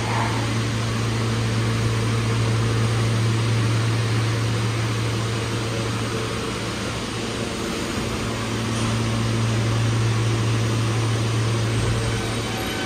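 Steady hum and rush of air from a New York City subway train standing at an underground platform, its air conditioning and auxiliary equipment running. A low rumble comes up near the end as a train starts to move.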